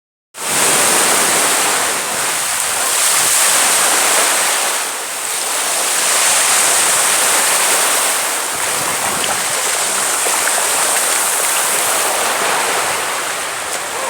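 Sea surf washing steadily, swelling and easing every few seconds.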